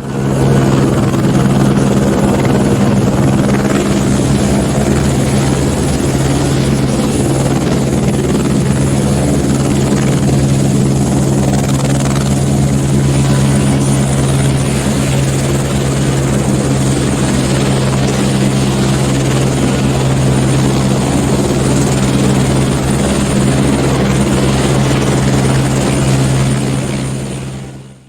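Helicopter running steadily, its rotor chop fast and even under a constant engine drone, fading out at the very end.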